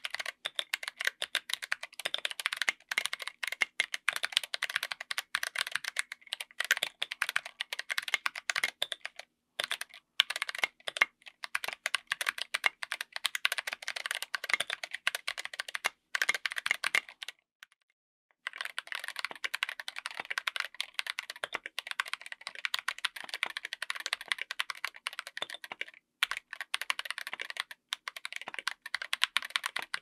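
Fast typing on a 60% mechanical keyboard with Zeal Clickiez 40g switches in an aluminium case with an FR4 plate and SA-profile ABS keycaps: a dense patter of keystrokes. The switches are the tactile version, changed to the linear version after a short pause about two-thirds of the way through.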